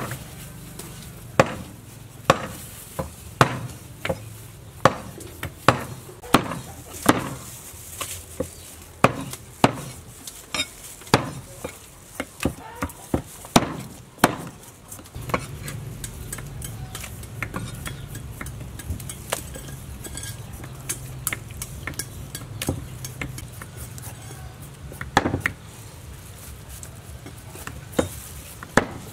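A knife chopping raw beef on a chopping board, knocking steadily about once a second. After about halfway the knocks stop and give way to fainter knife sounds over a low steady hum, with one louder knock near the end.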